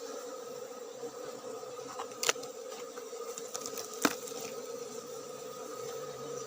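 Swarm of Asian honey bees (Apis cerana) buzzing steadily around their opened nest, with two sharp clicks about two and four seconds in.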